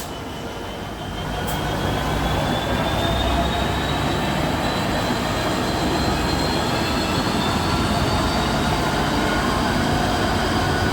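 Freight train rolling past at close range, a steady clatter and rumble of wagons on the rails. A thin, high wheel squeal rises slowly in pitch.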